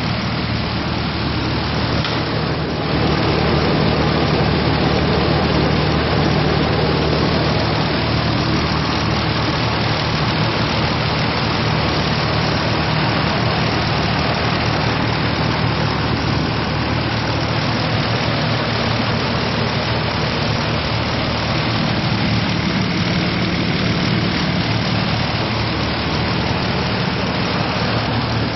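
Nissan 300ZX (Z32) twin-turbo 3.0-litre V6 idling steadily, heard from above the open engine bay. It gets a little louder about two seconds in.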